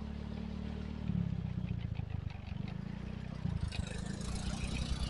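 Low, steady rumble of a small engine, most likely a motorbike moving slowly along the lane. A rise in higher hiss and rattle comes in over the last second and a half.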